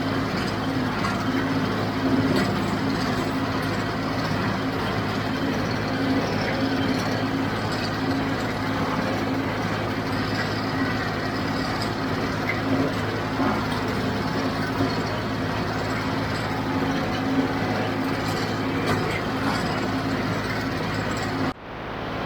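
John Deere 5055D tractor's three-cylinder diesel engine running steadily under load while pulling a JD 348 square baler, with the baler's mechanical clatter mixed in. The sound drops out briefly near the end.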